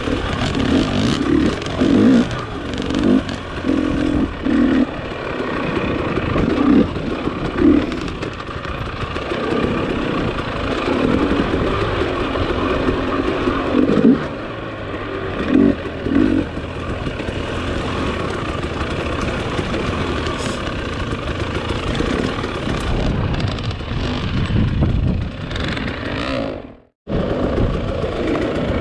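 Dirt bike engine running under changing throttle, rising and falling in repeated short revs over a steady rushing noise. Near the end the sound cuts out completely for a moment, then resumes.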